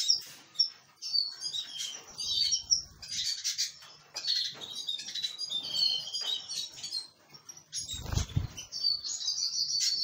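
Canaries and other small aviary finches chirping and twittering close by, with wing flutters as they flit on and off the seed heads. A brief low thump sounds about eight seconds in.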